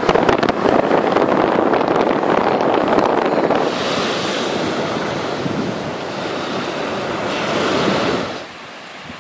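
Wind buffeting the microphone over surf washing onto a sandy beach. The noise cuts down sharply about a second before the end.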